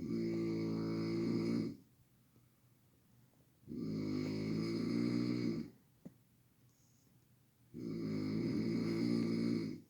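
A sleeper snoring loudly: three long snores about four seconds apart, each lasting nearly two seconds, with quiet breaths between.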